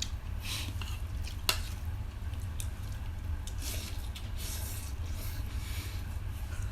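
Close-up eating sounds: wet squishing and chewing of food in short scattered patches, with one sharp click about one and a half seconds in, over a steady low hum.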